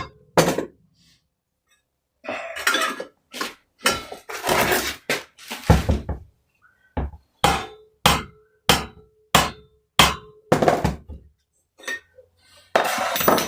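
Hammer tapping on the nut threaded onto a small engine's crankshaft, an irregular run of sharp metallic knocks, some ringing briefly, to shock the flywheel loose while it is pried up.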